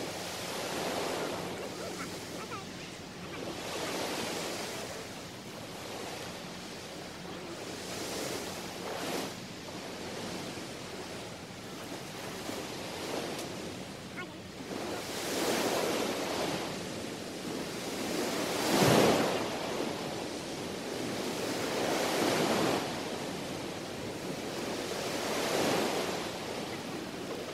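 Small sea waves breaking and washing up a sandy beach, a soft swell every three to four seconds, with one louder wave about two-thirds of the way through.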